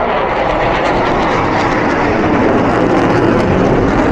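Eurofighter Typhoon's twin jet engines making a loud, steady rush of jet noise as the fighter flies its display, slowly growing louder.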